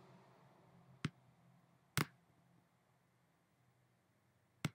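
Three sharp computer pointer-button clicks, about one, two and four and a half seconds in, over faint room tone.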